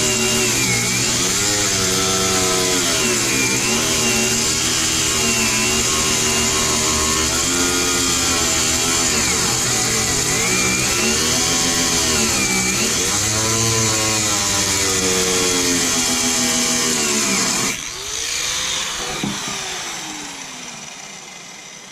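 Angle grinder with a cutting disc running loud and steady as it cuts an opening through the food truck's wall, its pitch dipping and recovering several times as the disc bogs in the cut. Near the end it is switched off and spins down with a falling whine.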